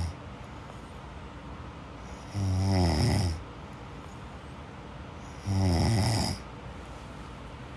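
A person snoring in sleep: two snores about three seconds apart, each lasting about a second and falling in pitch, with a steady hiss between them.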